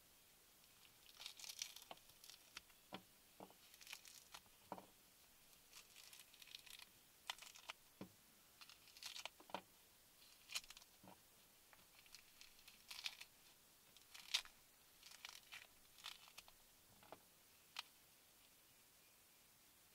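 Scattered, irregular drips from the trees tapping on the car's roof and body, heard from inside the car: soft ticks and a few duller taps at an uneven pace.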